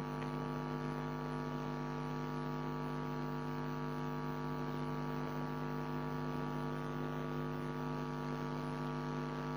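Steady electrical hum picked up by the recording: a low buzz with many overtones that does not change.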